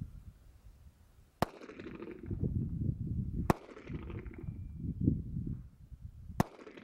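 Three single 9mm shots from a Glock 43 subcompact pistol, about two to three seconds apart, with a low rumbling noise between them.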